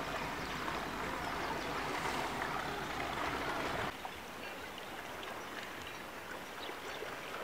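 Steady rushing noise of water and wind as a 75 ft Admiralty motor fishing vessel moves through the harbour. The sound drops and changes abruptly about four seconds in.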